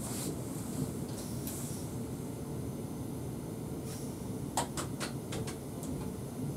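Steady running noise inside the cab of an ES2G Lastochka electric multiple unit moving along the track. A little over four and a half seconds in comes a quick, irregular run of sharp clicks.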